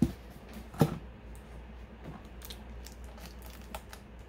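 Cardboard Funko Pop boxes being pulled out of a shipping box and handled: a sharp knock just under a second in, then faint scattered clicks and rustles.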